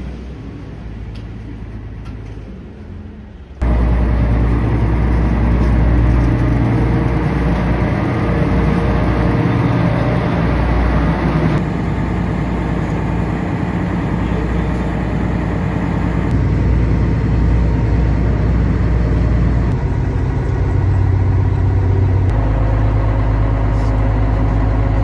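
Small ferry's engine running with a steady low rumble, heard from its open deck, in several short clips joined by abrupt cuts. The first few seconds are quieter waterfront ambience before the engine noise starts suddenly.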